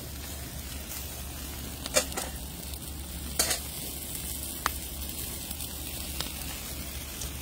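Food sizzling over an open wood fire, a steady hiss broken by a few sharp clicks.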